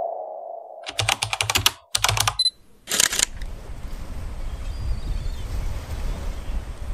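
Two quick runs of sharp, rapid clicks like typing on a keyboard, about a second in and again near two seconds, then one short cluster of clicks. Faint steady hiss follows.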